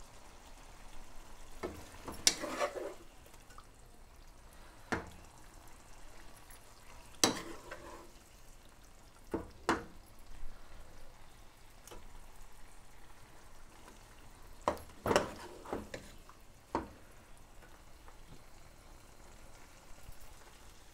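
Steel spoon knocking and scraping against a nonstick cooking pot as chicken-and-potato masala is spooned over rice: a handful of sharp clinks a few seconds apart over a faint steady hiss of the hot pot on the stove.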